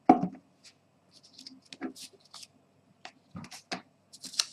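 Handling noise of a hand holding and moving a smartphone: a dull knock at the start, then scattered light clicks and scrapes.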